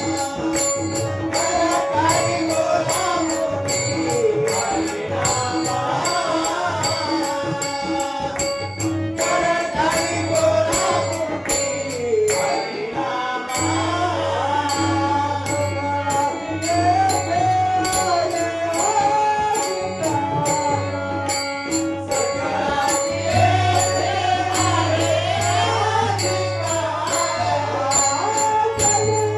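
Marathi abhang, a devotional song, sung by a male voice with ornamented, gliding phrases over tabla and a steady held drone, with sharp regular beats keeping time.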